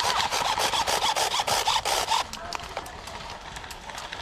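Airsoft guns firing: a rapid run of shots for about two seconds, then scattered single shots that are quieter.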